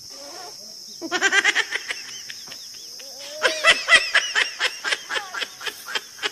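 Laughter in quick ha-ha bursts: a short bout about a second in, then a longer, fuller bout from about three and a half seconds.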